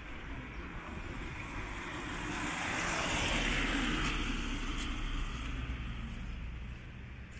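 A car passing on a wet road: the hiss of its tyres on the wet asphalt swells to a peak about three to four seconds in, then fades as it drives away.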